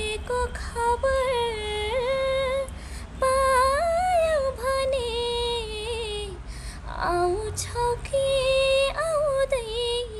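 A woman singing a slow Nepali modern (adhunik) song solo, in several phrases with long held notes and sliding ornaments, and brief pauses for breath between lines.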